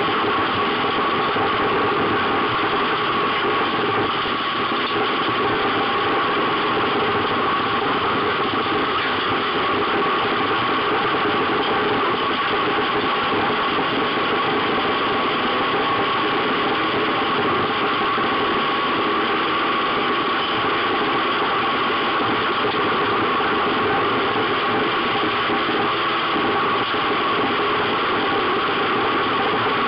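Race car engine running hard, heard from inside the cabin, with a steady, dense drone that barely changes in pitch.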